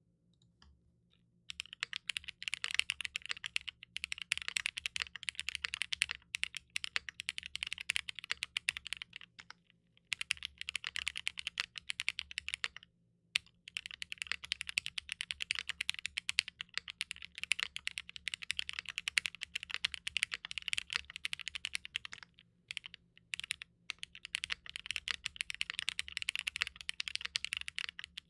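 Rapid typing on a W1-AT mechanical keyboard with Cherry MX Black linear switches polished with diamond paste, GMK keycaps and a 1.2 mm PCB. The keystrokes come in long fast runs, starting about a second and a half in, with a few brief pauses.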